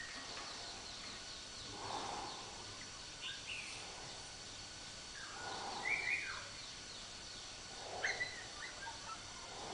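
Slow, soft snoring: a breathy swell about every three seconds. Short high chirps follow the swells, over a faint steady high-pitched hum.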